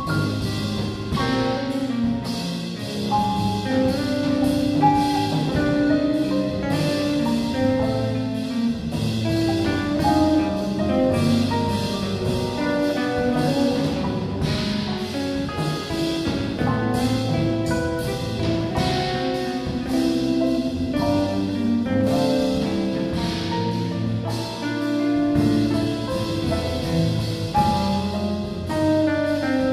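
Jazz quartet playing a tune: electric guitar, piano, electric bass and drum kit together.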